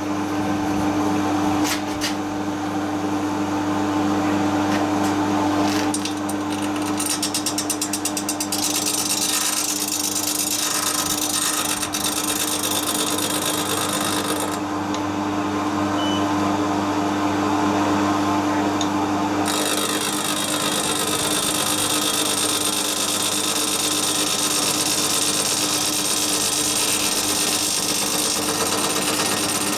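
Electric power tool running continuously on metal, with a steady hum under a rough, gritty noise that shifts in character several times.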